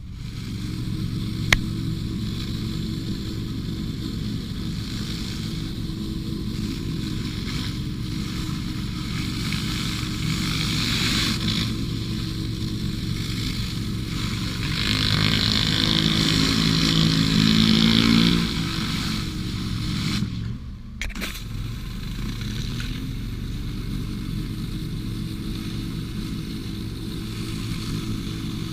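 An engine running steadily, with a loud hiss over it that swells for a few seconds about halfway through and cuts out briefly about twenty seconds in before the steady running resumes.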